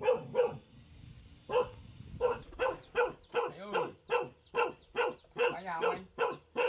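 A dog barking over and over, about two barks a second, with a pause of about a second near the start.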